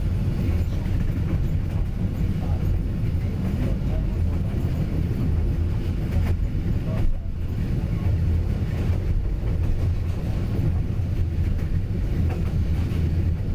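Train running on the railway tracks: a steady low rumble with faint clicks from the rails.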